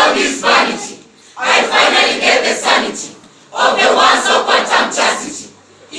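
A large group of voices declaiming a poem in unison, in loud shouted phrases of about two seconds each with short pauses between them.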